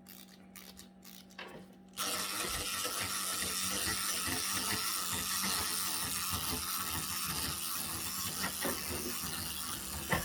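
Clockwork spring motor of a wind-up salt-and-pepper robot toy whirring steadily as it runs down. It starts suddenly about two seconds in.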